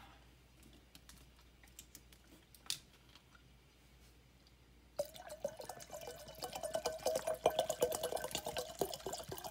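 Water poured from a plastic bottle into a glass bowl that already holds water, glugging and splashing. The pour starts about halfway through and keeps going, after a few faint clicks.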